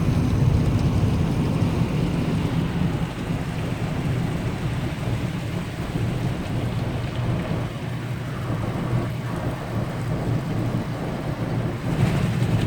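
Automatic car wash running over the car, heard from inside the cabin: a steady low rumble with water spray drumming on the body, a little louder near the end.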